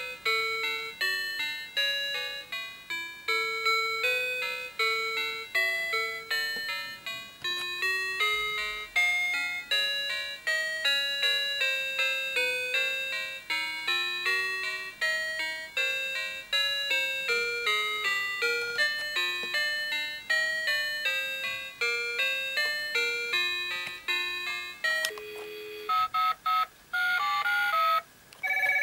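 Children's toy mobile phone playing a bright electronic tune through its small speaker, about three notes a second, each note dying away quickly. About 25 s in the tune cuts off, and a few short snatches of other electronic tones follow with brief breaks as its keys are pressed.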